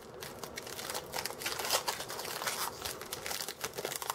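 Foil wrapper of a Panini Contenders Optic football card pack being torn open and peeled back by hand: a dense, irregular run of crinkling and crackling.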